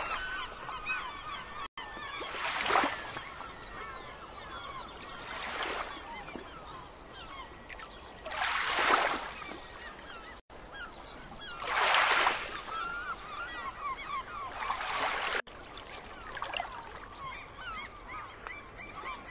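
A flock of birds calling continually in short honks and chirps, over the rush of waves swelling and washing in every few seconds. The sound drops out for an instant three times.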